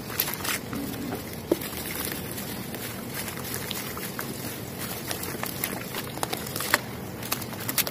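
Soft, dusty cement pieces snapping and crumbling, sped up to double speed: a steady crackly hiss with sharp cracks throughout, the loudest about a second and a half in and several near the end.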